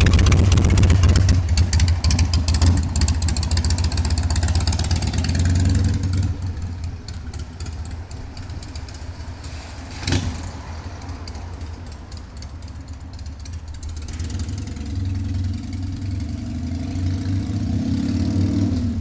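Motor trike's engine running close by, then fading as it moves off; about halfway through there is one sharp click. Near the end the engine grows louder again and rises in pitch as it accelerates back in.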